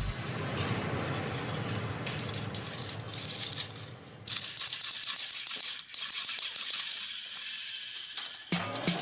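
Battery-powered toy Thomas the Tank Engine's motor and gears running with a dense rattling clatter as it hauls a train of cars. The rattle dips briefly, then gets louder about four seconds in.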